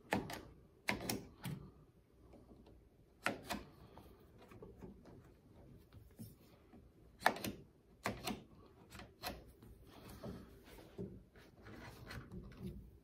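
Scattered sharp clicks and knocks, with faint rustling between them, as rubber roof-rail weatherstripping is pressed and squeezed into its metal channel on a car roof rail.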